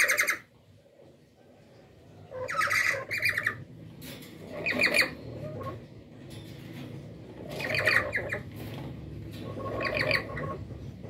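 Black-capped lories giving loud, harsh squawks, one call after another every two to three seconds, some in quick pairs.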